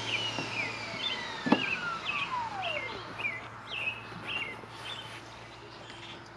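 Toro LX460 lawn tractor's 48-volt DC electric motor spinning down after being switched off: a falling whine that dies away about three seconds in. A bird sings short repeated chirps over it, and there is a single thump about a second and a half in.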